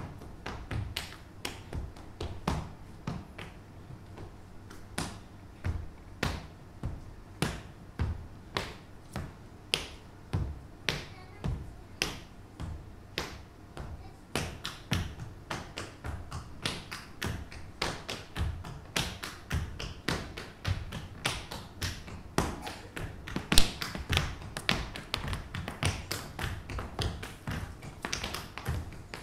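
Tap shoes' metal taps striking a stage floor in unaccompanied a cappella tap-dance rhythms. The strikes are sparser at first and become much faster and denser about halfway through, with one especially loud stamp a little after that.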